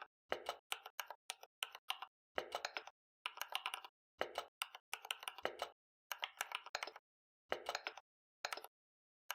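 Typing on a computer keyboard: quick runs of keystrokes in short bursts, separated by brief pauses.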